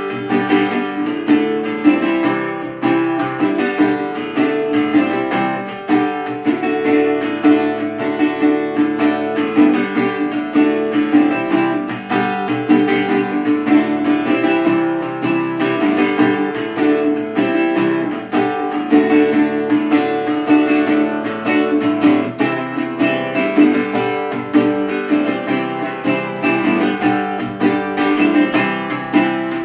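A Recording King metal-bodied resonator guitar played solo, a steady stream of quick picked and strummed notes with its bright, ringing metallic tone.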